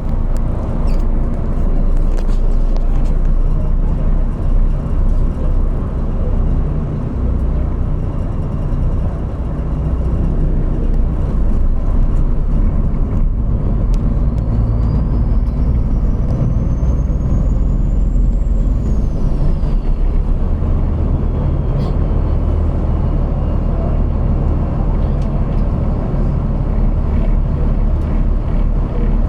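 Road vehicle driving, with a steady low engine and road rumble. A faint high whine rises and then falls about halfway through.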